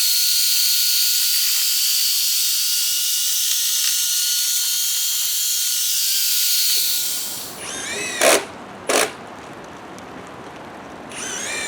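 Ryobi cordless driver running steadily with a high, hissy whine that stops about seven seconds in. After it, twice, a driver spins up with a rising whine and drives a screw home in a short loud burst.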